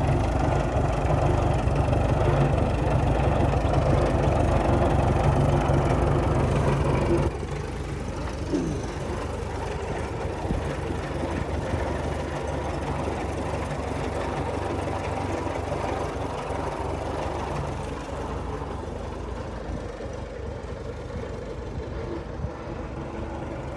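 Minneapolis-Moline Model R tractor's four-cylinder engine running as the tractor is driven slowly. The sound drops abruptly about seven seconds in, then fades gradually as the tractor moves away.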